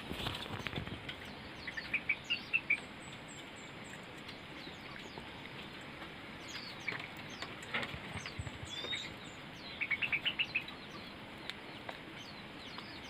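A small songbird, the white-eye (pleci) being tamed, fluttering its wings in short bursts, with short high chirps that come in quick runs of about six, one about two seconds in and another about ten seconds in.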